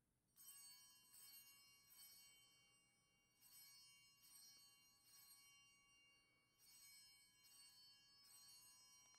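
Small altar bells (Sanctus bells) ringing faintly at the elevation of the consecrated host: three rings of about three quick shakes each, some three seconds apart, each ring leaving several high, clear tones sounding together.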